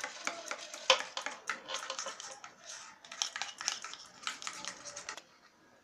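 Metal spoon stirring a thick fuller's-earth (multani mitti) face-pack paste in a small bowl: quick, uneven clicks and scrapes of the spoon against the bowl, stopping about five seconds in.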